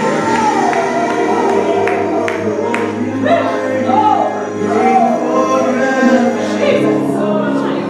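Gospel choir and congregation singing over a band, with drums keeping the beat.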